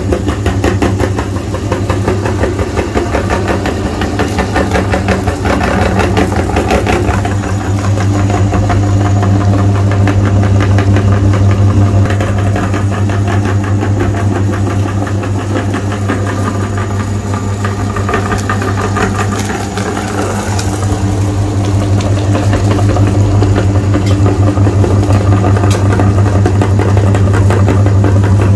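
Meat grinder running continuously with a steady low hum, grinding ice cream bars.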